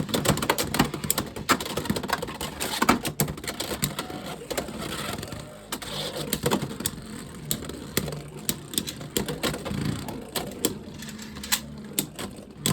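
Two Beyblade X spinning tops battling in a plastic stadium: a continuous whirring, scraping rattle of the tops and their gear bits on the stadium floor, broken by many sharp clicks and clashes as they collide.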